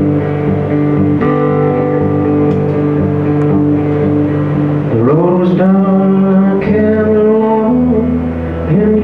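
Live country band playing: acoustic and electric guitars, bass, drums and pedal steel. Long held chords for about five seconds, then the notes slide up and begin to move.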